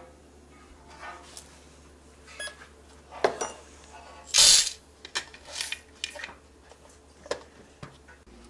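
Scattered clicks, clinks and knocks of coffee gear being handled: beans, a metal dish and a stainless cup around the grinders. One loud clatter about four and a half seconds in; no grinder motor is running.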